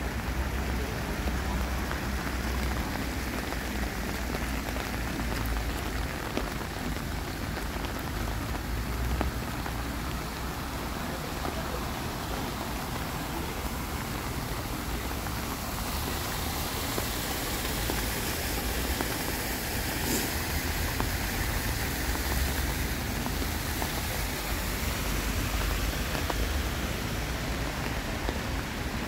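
Steady rain falling and pattering on wet paving stones, an even hiss with a low rumble underneath.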